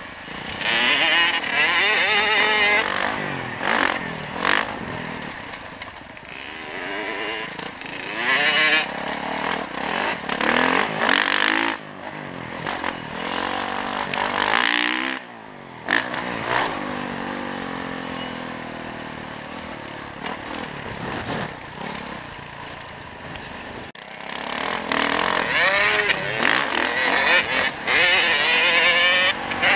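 Dirt bike engine revving up and down as it is ridden hard, the pitch rising and falling with the throttle, with a brief drop-off about halfway through. Wind noise rushes over the microphone in places.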